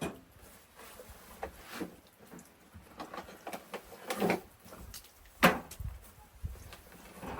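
A series of irregular knocks and clunks, the loudest about five and a half seconds in.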